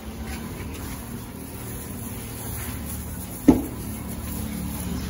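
A steady low motor hum, with one sharp knock about three and a half seconds in.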